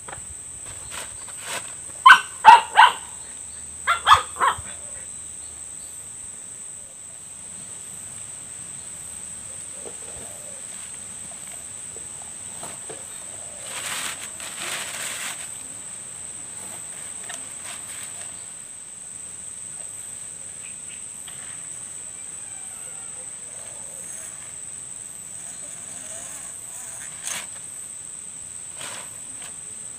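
A dog barking in two quick bursts, about two and four seconds in, over a steady high drone of insects. A brief noisy rush comes about halfway through.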